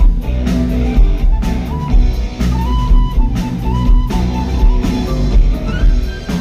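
Live rock band playing: a flute melody over electric guitar, bass guitar and a steady drum beat.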